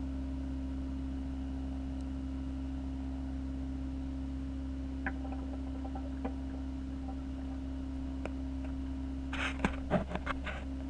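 Steady low hum of reef aquarium equipment such as the circulation and return pumps, with a few faint clicks and then a short cluster of clicks and rustles near the end.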